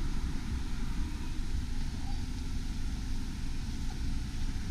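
Steady sound of road traffic: cars and vans driving past on a street, an even hum of engines and tyres.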